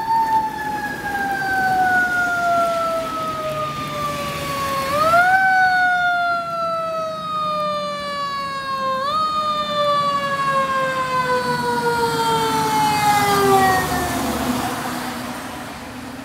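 Fire truck's Federal Q2B mechanical siren coasting down in long falling wails, wound back up quickly twice, about five and nine seconds in. Near the end it winds down and fades under a wash of road noise as the truck passes on the wet road.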